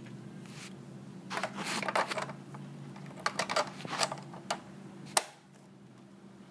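Lego plastic parts clicking and clattering as they are handled: a burst of rattling clicks about a second and a half in, more clicks between three and four and a half seconds, and one sharp click near five seconds, over a steady low hum.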